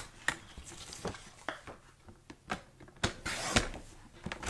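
A sheet of cardstock being handled and slid onto a paper trimmer: scattered light taps and clicks, with a longer rustle of paper sliding about three seconds in.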